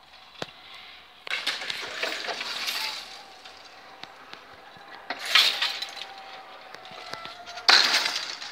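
Level-crossing barrier booms lowering, their hanging metal lattice skirts rattling and clinking in three bursts, over a faint steady whine from the barrier drive that stops near the end.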